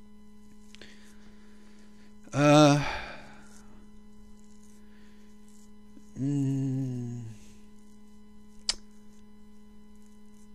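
Steady electrical mains hum on the recording, broken by a man's voice making two brief wordless sounds, about two and six seconds in, the first the louder, and a single sharp click near the end.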